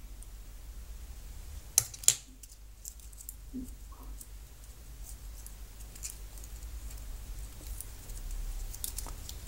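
Small steel lock picks and tension wrenches from a keychain pick kit clicking against each other as they are handled. There are two sharp clicks about two seconds in, then a few faint ticks, over a low steady hum.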